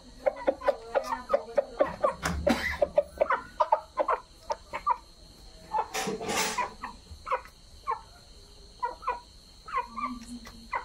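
Chickens clucking in quick, short notes, densely at first and more sparsely later. About six seconds in comes a brief, louder, rough burst.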